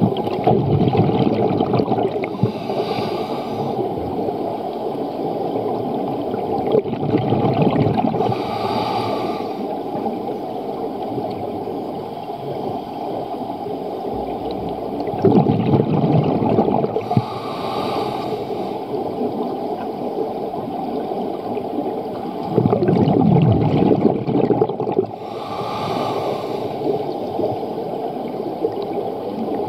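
A scuba diver breathing through a regulator underwater, heard as a continuous gurgle of bubbles. Every several seconds a louder bubbling exhalation or a shorter hissing inhalation swells up.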